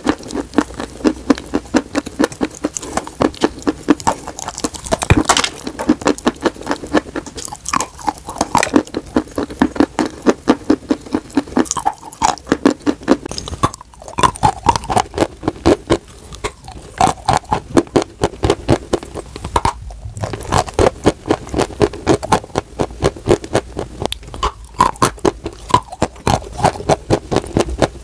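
Close-up crunching and chewing of crumbly white chalk-like blocks: a rapid run of crisp crunches, several a second, with a few short pauses.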